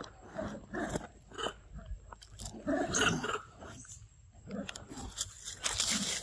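Irregular crunching and crackling of a small paper drink carton, handled and bitten by a macaque.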